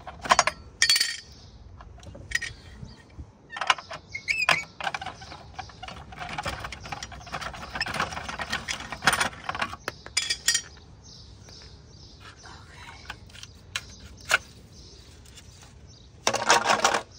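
Metal clicks, clinks and rattles of a lug wrench working a car wheel's lug nuts loose, with a hubcap being pulled off the wheel. A denser stretch of clatter comes in the middle, and a louder rattle about a second long comes near the end.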